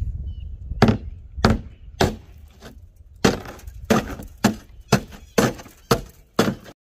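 A series of about ten heavy, sharp blows struck on the cab of a stripped 1989 GMC Sierra pickup, coming roughly every half second and a little faster toward the end.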